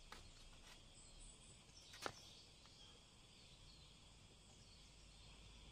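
Near silence: faint background hiss, with one faint click about two seconds in.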